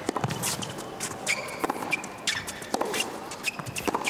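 Tennis rally on a hard court: rackets strike the ball back and forth about once a second, with sneakers squeaking on the court surface between shots.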